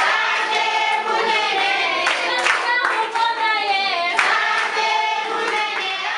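A group of voices singing together, with hand clapping.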